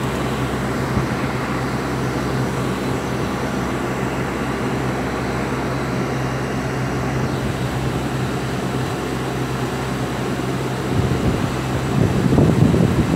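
Centrifugal exhaust fan of a stenter-exhaust electrostatic precipitator running with a steady low hum. Wind buffets the microphone near the end.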